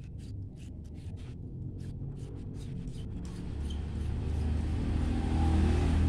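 A motor vehicle's engine rumbling low, growing steadily louder from about halfway through as it comes closer. In the first half, a run of small clicks and scrapes as LED bulbs are twisted into the lamp holders of a socket strip.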